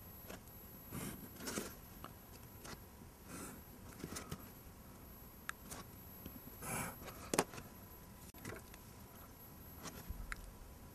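Pencil strokes along the edge of a plastic set square on drawing paper, with the set square sliding and being set down: a series of short scrapes and light taps, the loudest about seven seconds in.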